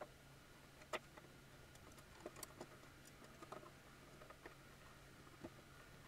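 Faint scattered clicks and taps of a hand screwdriver working screws and small metal fittings on a vintage watchmaker's lathe base, the sharpest click about a second in, over a faint steady hum.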